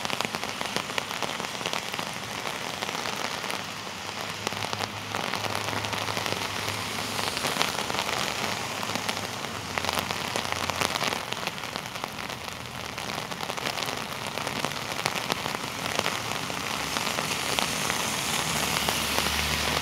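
Heavy rain pouring down on a city street, a steady dense hiss, with a low rumble of cars passing on the wet road that swells and fades in the middle stretch.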